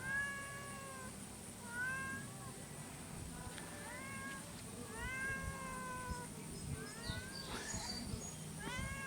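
A cat meowing over and over from up a tree, about six drawn-out meows that rise then fall: the cries of a cat stuck up high and unsure how to get down.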